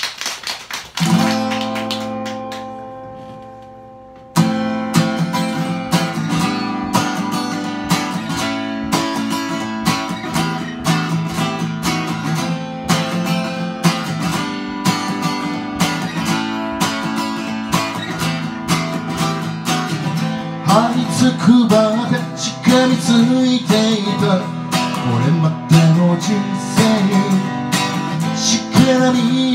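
Guild D-55 dreadnought acoustic guitar: a single chord strummed about a second in and left to ring and fade, then steady rhythmic strumming from about four seconds in as the song's intro.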